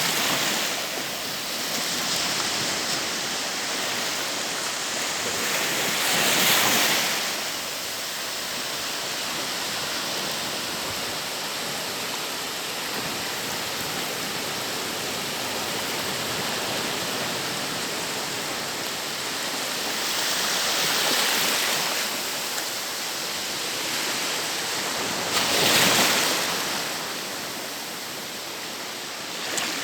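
Ocean surf on a beach: a steady rush of breaking waves, with louder waves crashing three times, about six seconds in, around twenty seconds and again a few seconds later.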